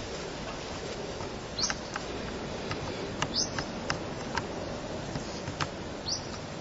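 Small sharp clicks from the controls of a Sony HX1 compact camera being worked, about nine spread irregularly, as the manual exposure settings step through values. Three short, high chirps that drop in pitch come through about a second and a half in, midway and near the end.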